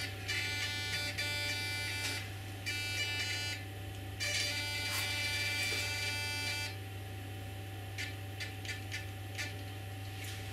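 RC helicopter tail-rotor pitch servo buzzing with a high, even whine in three stretches as it is driven further toward its end of travel while the gyro's limit is raised. Several light clicks follow near the end.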